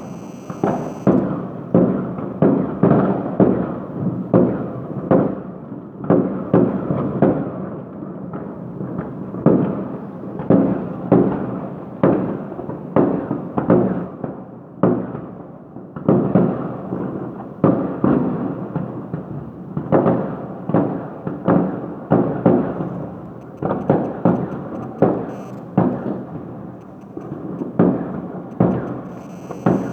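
Fireworks going off in quick succession: one or two bangs a second, each dying away in a short rumble, without a break.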